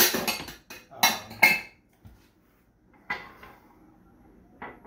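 Utensils clinking and knocking against a metal saucepan and the stovetop: a sharp clatter at the start, two more about a second in, then softer knocks around three seconds and just before the end.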